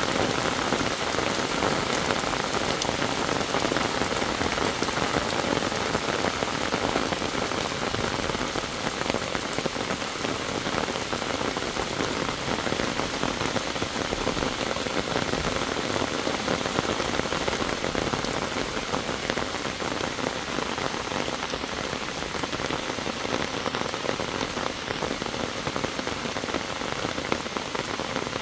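Heavy monsoon rain falling steadily on a flooded paved road and roadside bushes, an even downpour with no letup.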